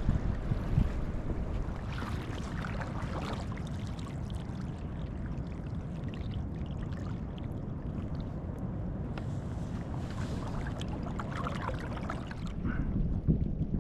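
Water splashing and lapping around a folding sea kayak as it is paddled, with brighter splashes of paddle strokes now and then. A steady low rumble of wind on the microphone runs underneath.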